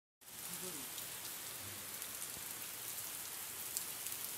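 Rain pouring onto a flooded street: a steady hiss of rain hitting standing water, with scattered sharp drop splashes.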